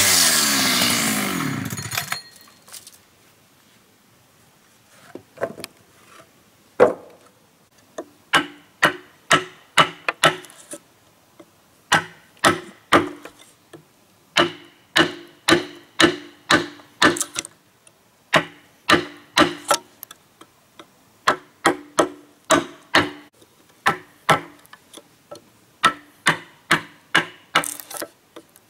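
A power tool winding down over the first two seconds, its pitch falling. Then runs of sharp hammer blows on wood follow, about two to three a second, with short pauses between the runs.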